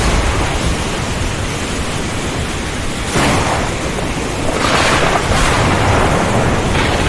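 Heavy rainstorm with strong wind: a dense, steady hiss of rain. A sudden louder crash about three seconds in, swelling again around five seconds, like thunder breaking over the storm.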